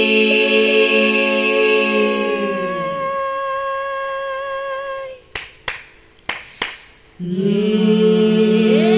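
Layered a cappella women's voices holding a sustained chord. About three seconds in, the lower voices slide downward in pitch and drop out, leaving a single held note. Around five seconds in the singing stops and four sharp finger snaps sound, and near seven seconds the full chord returns with voices sliding up into it.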